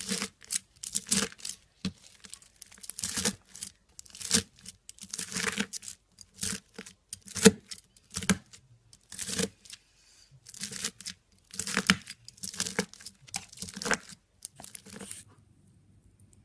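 Scissors cutting through green slime packed with clear beads, each snip giving a crackly crunch, about one a second. The cutting stops shortly before the end.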